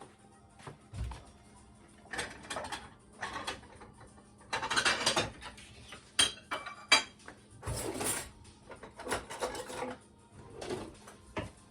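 Kitchen handling noises: irregular scraping and rustling with a few sharp clinks of dishware or utensils, as barbecue sauce is worked over chicken thighs in a crock pot.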